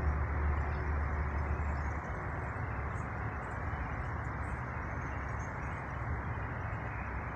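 Steady outdoor rumble and hiss, heaviest for about the first two seconds and then settling to an even level.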